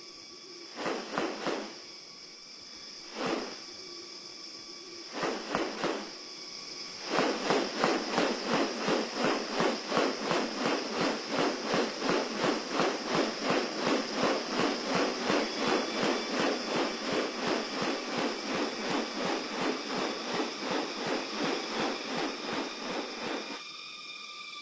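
Rainforest ambience: insects keep up a steady high drone. A few scattered rustling pulses come first, then about seven seconds in a long even series of rapid rustling pulses begins, about three a second, and stops shortly before the end.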